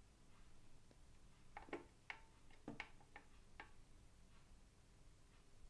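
Near silence: faint room tone with a handful of faint, irregular clicks in the middle of the stretch.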